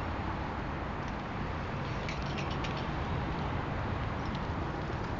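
Steady outdoor background rumble, with a few faint, short high ticks or chirps about two seconds in.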